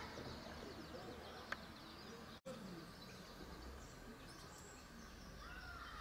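Faint outdoor ambience with scattered bird calls and chirps, broken by a brief dropout a little over two seconds in.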